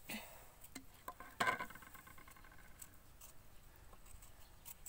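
Faint scraping and small clicks of a knife peeling the skin off a green Indian mango, with a brief vocal sound about a second and a half in.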